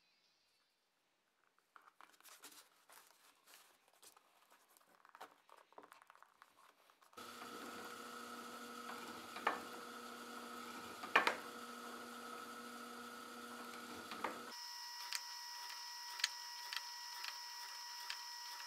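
Faint handling noises at first. Then a benchtop drill press runs with a steady hum while a thin bit drills stitching holes through a leather sheath, with sharp clicks as the bit goes through. About halfway through, the hum jumps abruptly to a different pitch, as at a cut to another take.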